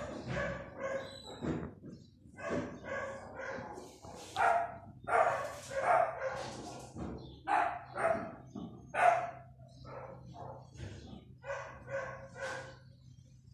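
Small dog barking repeatedly, a series of short, high-pitched yips with uneven gaps, loudest in the middle stretch.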